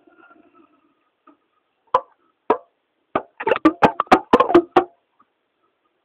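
Sharp knocks and taps: two single knocks about half a second apart, then a quick flurry of about a dozen lasting a second and a half.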